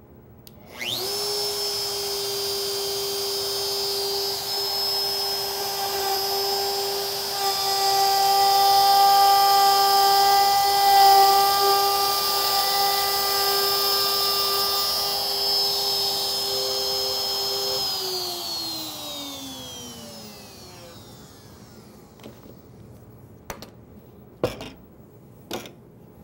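Plunge router with a cove bit starting up with a quick rising whine, then running steadily while it cuts a groove down the middle of a board. It is louder through the middle of the cut. About two-thirds of the way through it is switched off and winds down with a falling pitch, followed by a few light knocks.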